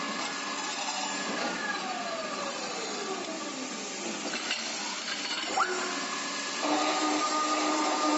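Automatic metal pipe-cutting machine running with a steady motor whine. A whine falls in pitch about two seconds in, a short rising whine comes about five and a half seconds in, and the steady running hum returns near the end.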